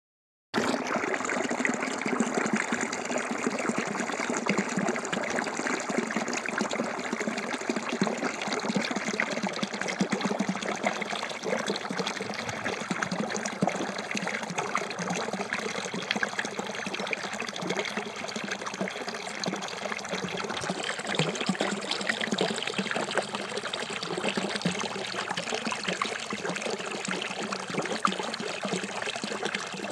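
A stream of water pouring into a shallow muddy pool, splashing and bubbling steadily; it starts about half a second in.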